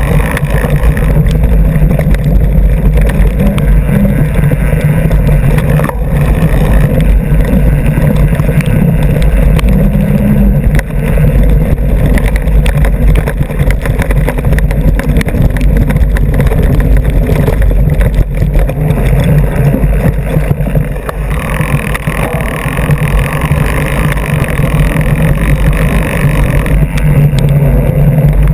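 Mountain bike rolling fast down a dirt trail, heard from a camera mounted on the front fork: a loud, steady, deep rumble of the tyre and bike rattling over the ground with wind on the microphone, turning harsher and hissier for a few seconds about two-thirds of the way through.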